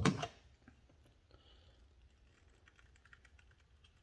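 A sudden knock of handling right at the start, then faint, scattered small clicks and taps as the shoe and the tacky Shoe Goo are worked over by hand.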